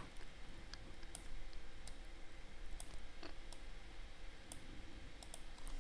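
Computer mouse clicking: a dozen or so faint, irregularly spaced clicks over a quiet room background.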